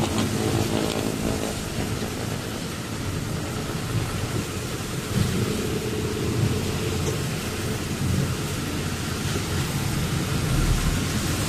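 Steady low rumble of a truck's engine and road noise heard inside the cab, with an even hiss of rain and wet road underneath.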